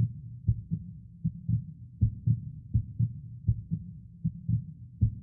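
Heartbeat: low double thumps in steady lub-dub pairs, about eighty a minute.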